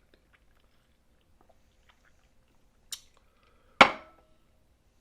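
Close-up eating sounds of a person chewing snow crab: faint scattered mouth clicks, then one louder sharp mouth sound about four seconds in.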